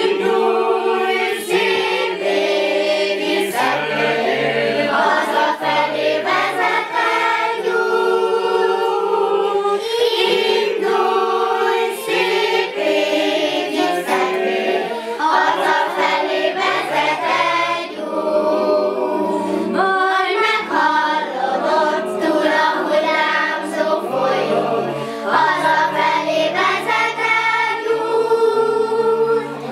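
A mixed group of adults and children singing a song together in chorus.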